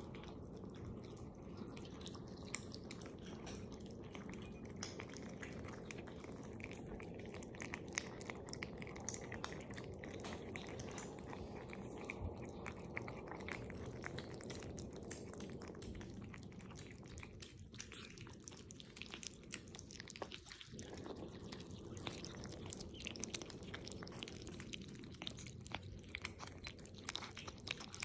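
Several kittens eating wet cat food from bowls: quiet, continuous smacking, lapping and chewing clicks from many small mouths at once.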